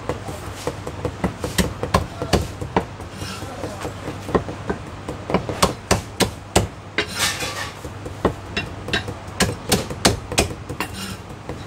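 Meat cleaver chopping cooked chicken on a thick round wooden chopping block: sharp, irregular knocks, with quick runs of chops about halfway through and again near the end.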